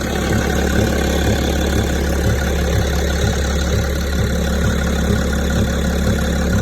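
BMW E65's 3.0-litre straight-six diesel idling, with a regular knock about twice a second. The knock is the engine fault being shown.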